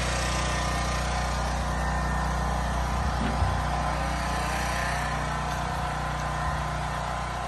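A large engine running steadily, a low even drone, with one light knock about three and a half seconds in.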